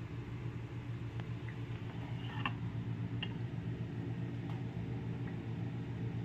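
Steady low mechanical hum, with a few faint clicks and taps.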